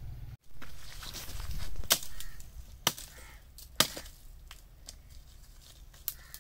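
A hand hoe chopping into dry, hard-packed earth: three sharp strikes about a second apart, with lighter ticks and scraping of the blade through dirt and straw between them.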